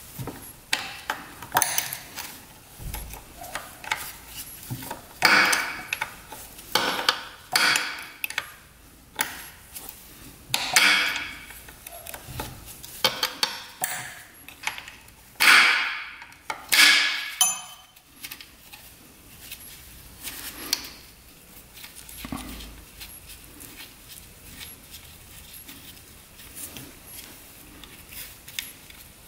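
A wrench clinking and scraping on the kick-start lever's pinch bolt of a 1967 Yamaha YL1 as the bolt is worked loose. Short metallic strokes come irregularly through the first eighteen seconds, then only faint light taps.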